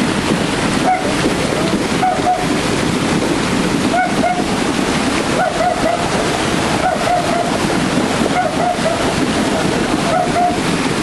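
Steady rush of a small rocky stream flowing over stones.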